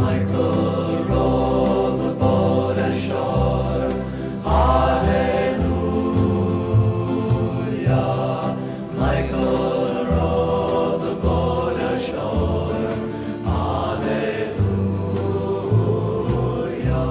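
Folk song recording: a vocal group sings in harmony without clear words over a steady, evenly pulsing bass and guitar accompaniment.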